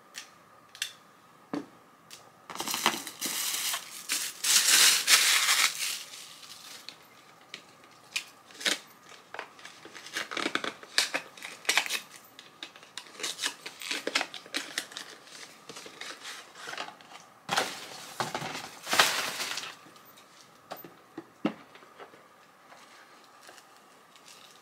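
Packaging being handled and unwrapped by hand: crinkling, rustling and tearing in several spells, the loudest about three to six seconds in, with scattered small clicks and taps between.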